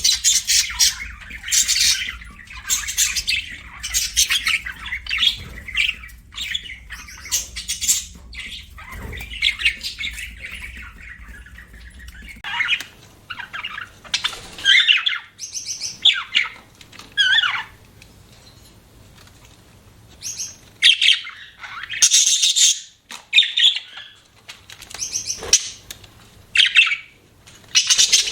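Budgerigars chirping and chattering, a dense run of calls at first, then thinning to scattered separate chirps and squawks with short pauses in between.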